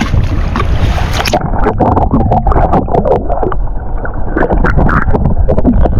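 Heavy wind buffeting the microphone, with scattered small clicks and knocks.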